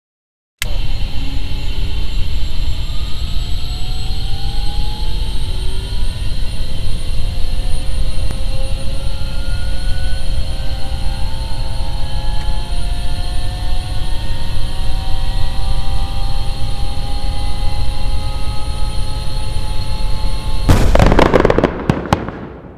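A loud, steady mechanical noise with several whines slowly rising in pitch over it, like a turbine spooling up. A loud burst comes near the end before the sound fades out.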